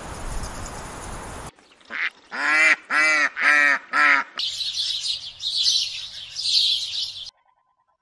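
Domestic duck quacking five times in quick succession, about two quacks a second; the first quack is short. Before the quacks, a steady rushing noise cuts off suddenly, and after them comes a few seconds of high, hissy chatter.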